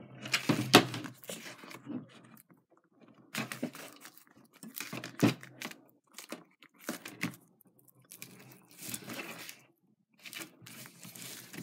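Tape-covered comic paper crinkling and rustling in irregular bursts as it is handled and folded, with a few sharp crackles and short pauses between.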